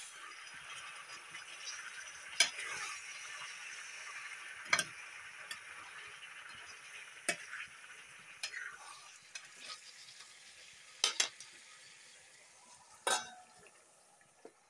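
Food frying in hot oil in a pan, sizzling steadily while it is stirred with a metal ladle that knocks against the pan every couple of seconds. The sizzle dies down toward the end.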